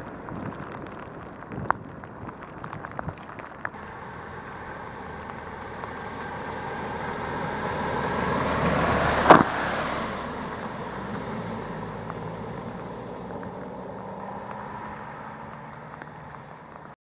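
Mercedes-Benz Atego lorry driving through deep floodwater: its diesel engine and the rush of water thrown up by its wheels build to a peak about nine seconds in, with a sudden sharp hit at the loudest point, then fade as it passes. Afterwards a steadier low engine hum from more traffic on the flooded road.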